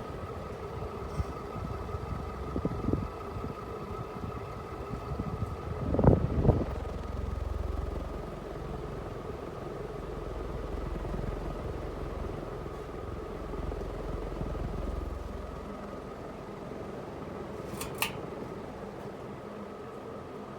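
Winco variable-speed ceiling fan running, its motor giving a steady hum. A pair of knocks comes about six seconds in, followed by a low rumble for several seconds, and a short sharp click sounds near the end.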